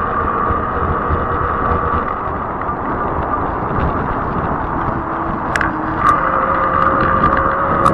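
Fat-tire e-bike rolling along asphalt: a steady whine from the drive and hum from the tires over wind on the microphone. The whine gets a little louder about six seconds in, with a few light clicks.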